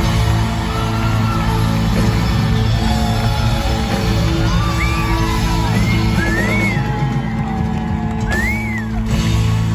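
A live rock band plays sustained chords over a bass line, heard from among the audience. Several whoops and yells from the crowd rise and fall over the music.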